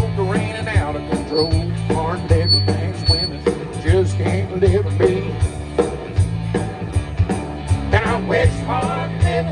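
Live country-rock band playing through the PA, with electric guitars, bass and drums keeping a steady beat.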